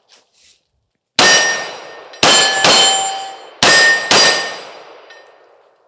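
SIG P365 Fuse 9 mm pistol fired five times: a single shot, then two quick pairs. Each report is followed by a metallic ring that fades over about a second, typical of steel targets being hit.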